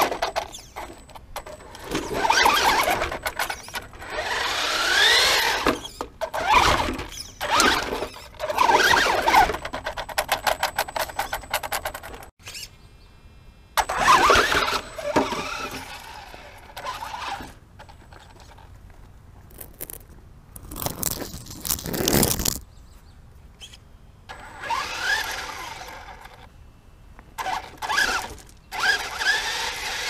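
Traxxas Stampede 4x4 VXL RC truck's brushless electric motor and drivetrain whining in repeated short throttle bursts, rising and falling in pitch, with quieter pauses between as it crawls over rock.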